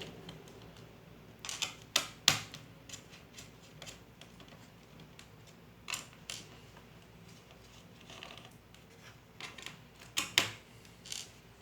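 Scattered sharp clicks and taps of a screwdriver and small screws as the bottom-cover screws of a Dell Inspiron 7472 laptop are taken out. The clicks come in small clusters, the loudest about two seconds in and about ten seconds in.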